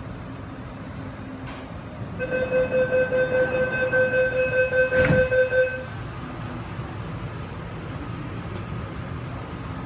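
MTR East Rail line R-Train running slowly as it pulls into a station platform, heard from inside the car. About two seconds in, a loud steady high tone with a fluttering level sounds for about three and a half seconds, with a single sharp knock near its end. The low running rumble then carries on alone.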